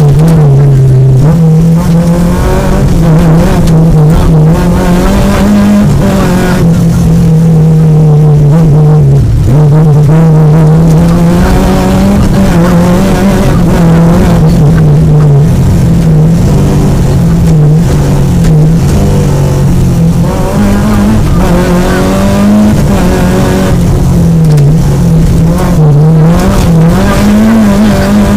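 Peugeot 205 GTI rally car's four-cylinder engine, heard from inside the cabin, revving hard and pulling through the gears, its pitch rising and falling again and again.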